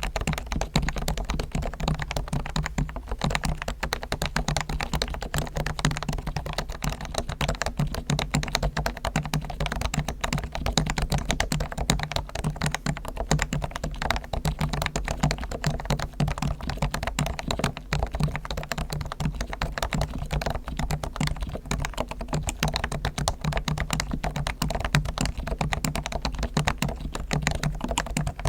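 Continuous fast typing on a Realforce R1 keyboard with Topre electrostatic capacitive switches. The springs and sliders are fully lubed with Krytox, the stabilizers are tuned and the case is damped with foam. Many quick keystrokes follow one another without a break, the strongest part of the sound sitting low.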